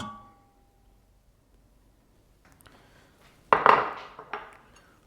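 Tableware being handled while food is served: a sharp clink of a utensil on a dish with a short ring, then about three and a half seconds in a louder scraping clatter and a few knocks of a spoon against a plate.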